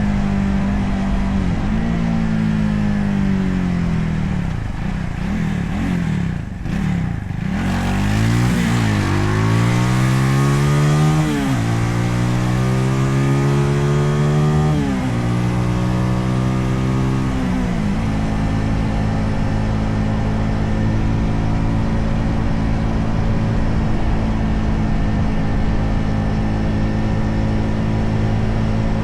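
Motorcycle engine heard through a handlebar-mounted camera's built-in microphone with wind reduction on: it slows with falling pitch over the first several seconds, then accelerates with rising pitch, shifting up twice, and settles into a steady cruise for the last ten seconds or so. A low road and wind rumble runs underneath.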